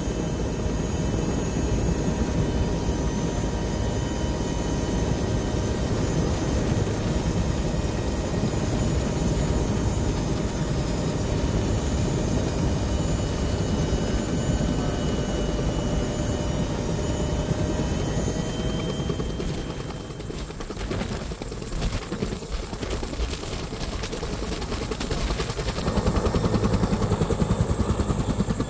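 Bell 212 HP helicopter running on the ground on its Pratt & Whitney PT6T-3 Twin-Pac turboshaft engines: a steady turbine whine over the heavy rotor noise. About twenty seconds in, the whine drops away and a regular rotor beat takes over, growing louder near the end.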